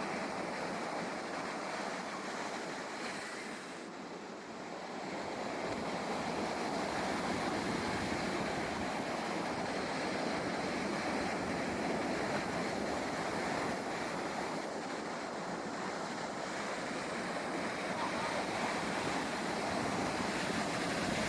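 Ocean surf washing in a steady rush of breaking waves. It eases for a moment about four seconds in, then builds again.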